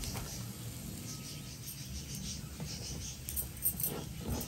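Diced onions sizzling gently in a little oil in a non-stick frying pan, a soft steady crackle as they begin to fry, with a few small clicks near the end.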